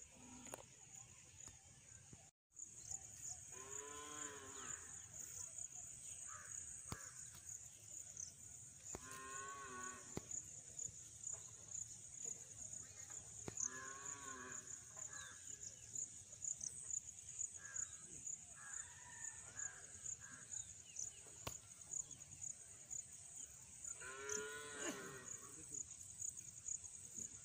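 Faint animal calls: four drawn-out calls several seconds apart, each rising and then falling in pitch, over a steady, high-pitched insect drone.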